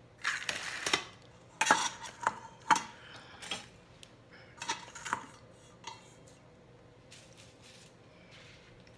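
Stainless steel mixing bowl knocking and scraping, with a short metallic ring on several knocks, as chicken pieces on bamboo skewers are handled in it. The clinks come in a cluster over the first few seconds, then only faint handling sounds.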